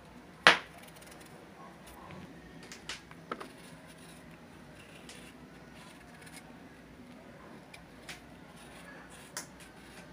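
Small kitchen knife peeling a chayote by hand over a plastic bowl: one sharp click about half a second in, then a few softer clicks and scrapes.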